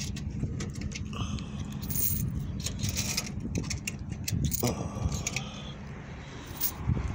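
Handful of quarters jingling and clinking as coins are fed into a self-serve car wash's coin slot, a few sharp metallic clinks, over a steady low hum.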